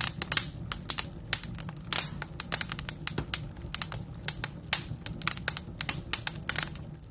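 Wood fire crackling: burning logs give off rapid, irregular pops and snaps over a low steady rumble of the flames.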